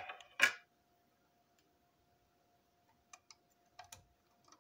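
Plastic model railway brake van parts knocking on a tabletop: two sharp knocks at the start as the body is set down, then a few light clicks about three seconds in as the wheeled chassis is handled. A faint steady hum runs underneath.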